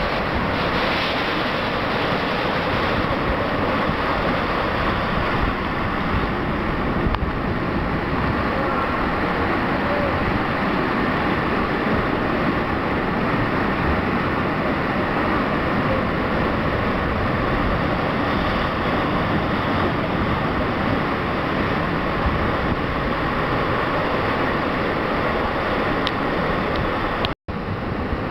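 Ocean surge churning and crashing against the rocks of a deep sea grotto: a continuous loud roar of white water, broken by a brief dropout near the end.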